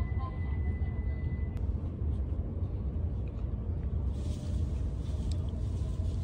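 Steady low rumble inside an E5-series Hayabusa Shinkansen passenger car: the train's running and cabin noise. A light hiss joins about four seconds in.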